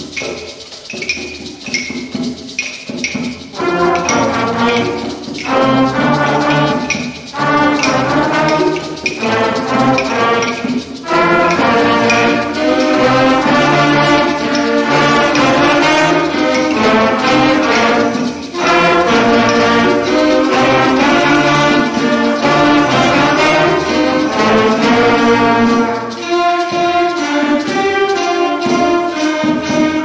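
School concert band playing a Christmas arrangement: light percussion keeps a steady beat for the first few seconds, then the full band of brass and woodwinds comes in and plays on in phrases, softening near the end.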